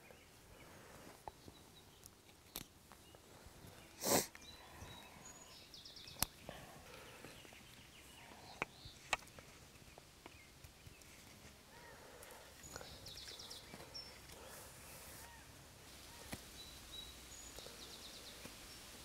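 Scattered small clicks and taps of wooden rod and reel parts being handled, with one louder knock about four seconds in. A songbird sings the same short trilled phrase three times.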